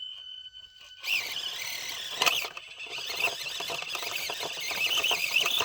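Micro-scale RC rock crawler's small electric motor and gear train whining as it crawls over rock and concrete, the whine starting about a second in and wavering in pitch with the throttle, with small clicks and scrapes of the tires and chassis on the rock.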